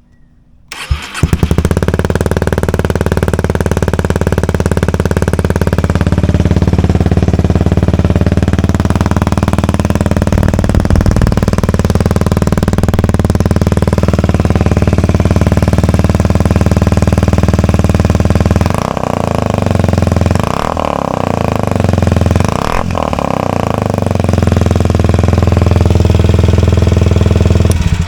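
Kawasaki Ninja 125's single-cylinder four-stroke engine running with the muffler removed, straight-piped: it starts about a second in and idles steadily and loudly. A few quick throttle blips come around two-thirds of the way through, and the sound stops abruptly at the end.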